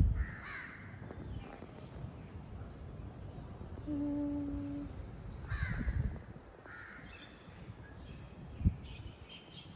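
Crows cawing: a harsh call near the start and more calls around six and seven seconds in, with faint chirps of small birds. A steady low hum lasts about a second in the middle, and a single sharp knock sounds near the end.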